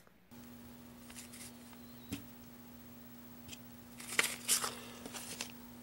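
Paper envelope and a card sticker being handled, rustling and tapping, busiest from about four seconds in, over a faint steady hum.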